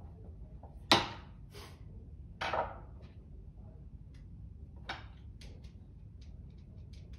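Handling noise on a worktable. About a second in there is a sharp clack as a hand screwdriver is set down, then a rougher knock and scrape, followed by small clicks of screws and buffers being picked up and handled.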